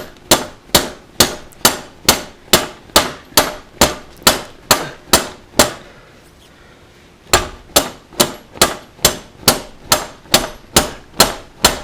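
A hammer striking repeatedly in a steady rhythm, about two blows a second, each with a short ring. The blows stop for about a second and a half midway, then resume at the same pace.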